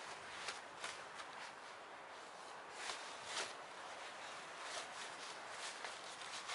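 Faint rustling and scuffing of a cloth carry bag being handled, with a few scattered light clicks over a steady background hiss.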